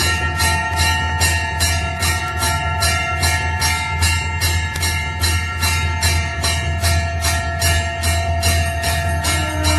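Temple bell rung rapidly and without pause for aarti, about three strokes a second, its ringing tones overlapping into a steady metallic chord over a low hum. A lower held tone joins near the end.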